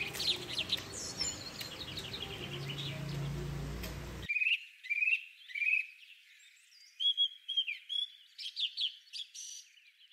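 Small birds chirping repeatedly in short calls over low room noise; a little over four seconds in, the low background cuts out abruptly and only the chirping carries on.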